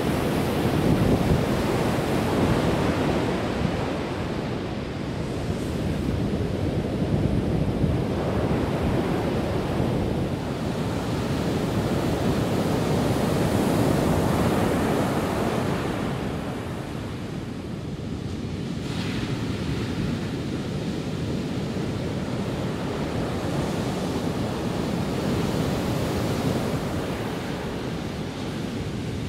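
Rough sea surf breaking on a sandy beach and around a rock stack: a continuous wash that swells and eases as sets of waves come in, with wind buffeting the microphone.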